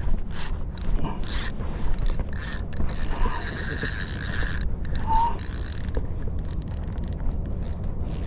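Spinning reel being cranked to bring in line, its gears giving a rapid ratcheting clatter of clicks. There is a steady low rumble underneath.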